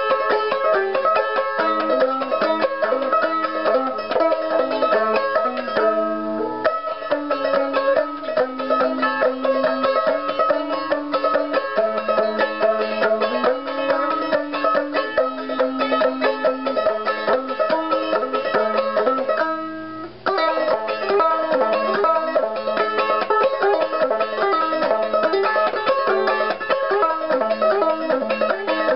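Banjo ukulele picked in a fast, running tune of quick plucked notes, with a brief break about two-thirds of the way through.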